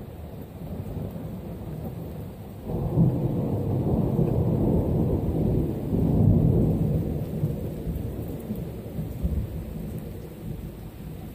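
Rolling thunder: a deep rumble swells suddenly about three seconds in, stays strong for several seconds, then slowly dies away.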